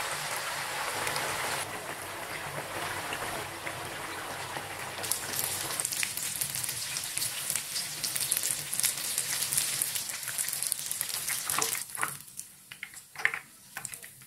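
Tofu blocks deep-frying in hot oil in a pan, a dense steady sizzle and crackle. About twelve seconds in, the sizzle thins to scattered pops once the tofu is lifted out of the oil.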